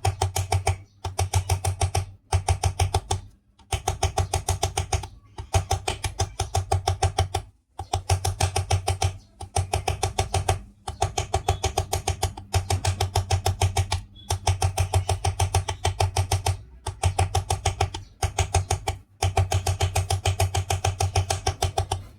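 A metal file worked in rapid, short strokes against a ceiling fan's steel shaft at its worn bearing seat, in bursts of a second or two with brief pauses. It is raising small marks on the worn seat so the bearing will grip tightly and stop the fan rattling.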